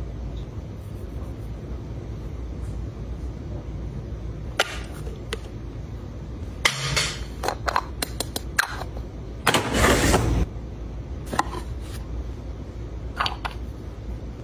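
Close-up handling of a small cream jar and its screw lid: scattered clicks and taps, a dense run of them in the middle, and a loud scraping rustle lasting about a second. A steady low rumble sits underneath.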